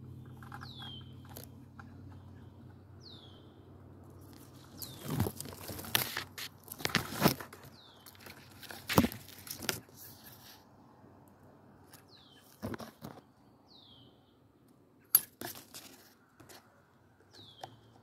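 Leaves and twigs rustling and crackling in loud bursts as foliage brushes close past, mostly through the middle and again near the end. Between them a bird repeats a short call that falls in pitch, every few seconds.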